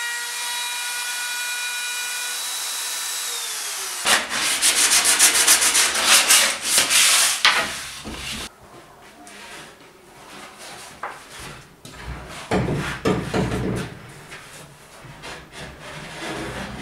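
Handheld wood router running at a steady whine, then switched off and winding down. Then rapid strokes of hand sanding along the freshly routed edge of a pine panel, the loudest part. Then quieter knocks and thumps of wooden panels being handled.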